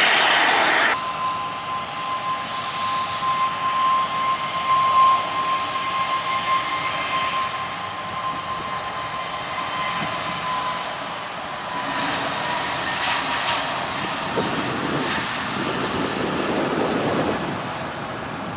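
Jet airliner engines running: a steady high whine that slowly falls in pitch over a rumbling noise. A louder roar cuts off abruptly about a second in.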